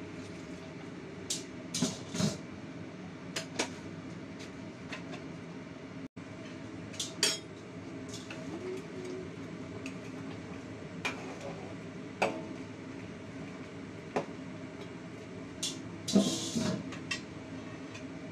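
Metal-on-metal clinks and knocks of a spatula against a wok and pans, scattered through, with a louder clatter about sixteen seconds in as a stainless steel dome lid is set on the wok. A steady low hum runs underneath.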